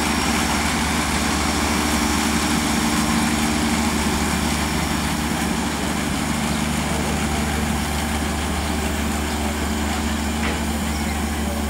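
Diesel multiple-unit railcar engine running steadily at low revs: an even, deep idling hum that does not change.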